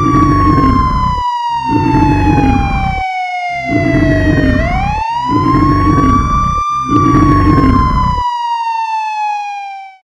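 A wailing siren, its pitch sliding slowly down, sweeping back up about halfway through and sliding down again. Under it run about six loud, low blasts, roughly one a second, which stop a couple of seconds before the siren cuts off.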